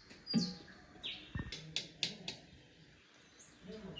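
Small birds chirping with short, high notes, and a few sharp clicks and a dull knock about one and a half to two and a half seconds in.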